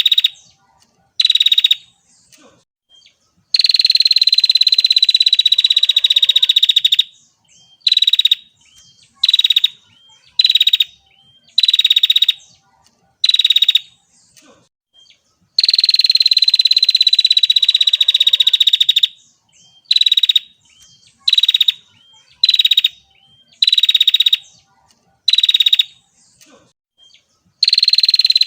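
Female prinia (prenjak) calling: short buzzy notes about a second apart, broken twice by a long buzzing trill of several seconds that falls slightly in pitch.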